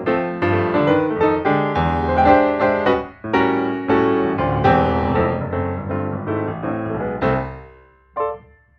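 Background piano music: quick, busy note runs that fade out near the end, followed by two short isolated notes.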